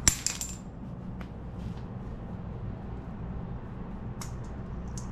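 A sharp metallic click with a brief high ring as a hand tool works on the Suzuki DR200's cam chain tensioner during engine reassembly. A few faint light ticks follow, over a steady low hum.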